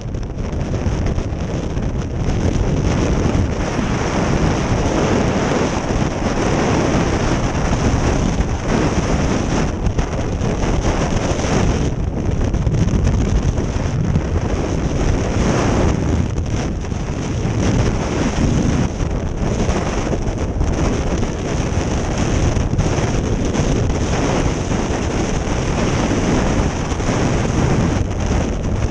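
Loud, steady rush of freefall wind buffeting the microphone of a camera carried in freefall.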